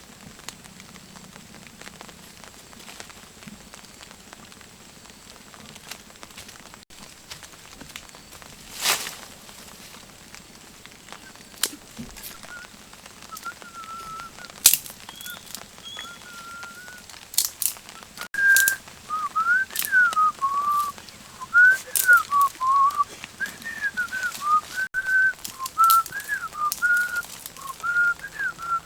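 Whistling, a single clear tone that slides up and down in short phrases, starting about halfway through and carrying on to the end, with a few sharp clicks and knocks scattered through it.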